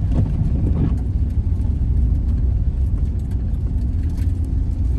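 Van engine running with a steady low rumble and vehicle noise, heard from inside the cab.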